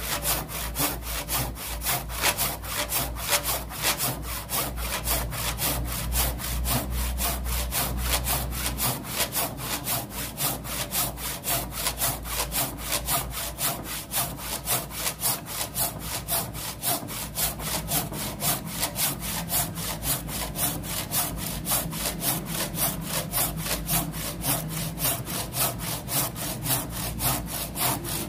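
Carl Schlieper Tjap Mata hand saw cross-cutting a teak beam in a steady, even rhythm of back-and-forth strokes.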